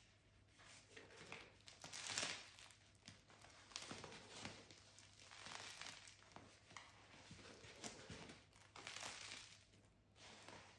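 Crisp crust of a freshly baked wheat loaf crackling faintly under the fingers as the loaf is pressed and turned over on a wooden cutting board, in short scattered bursts, the loudest about two seconds in.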